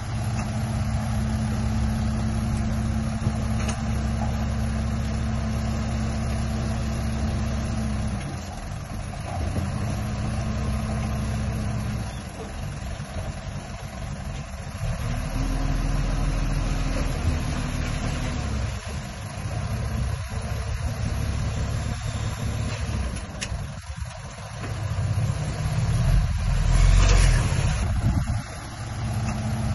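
Diesel engine of heavy construction machinery running, its pitch and load shifting every few seconds. Near the end there is a brief, loud rush of hissing noise.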